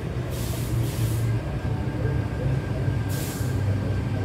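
Train running at a station platform: a steady low hum, with two short hisses of air, about half a second in and about three seconds in.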